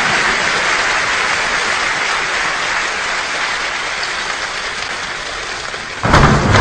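Rainstorm imitated by a choir with palms and fingers: a dense patter of many hand claps and finger snaps that slowly thins and softens, then, about six seconds in, swells suddenly into a loud, heavy downpour with a deep rumble underneath.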